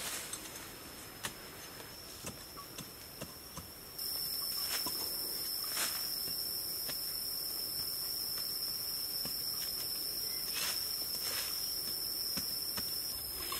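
Machete blade chopping and scraping into dry dirt, irregular short knocks, over a steady high-pitched drone of insects. The insect hiss gets louder about four seconds in.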